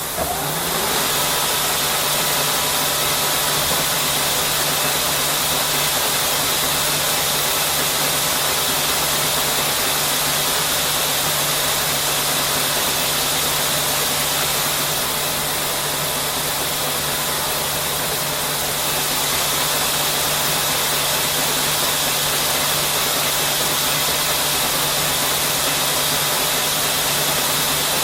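Textile knitting machine running steadily: a dense, even mechanical noise over a constant low hum, easing slightly around the middle.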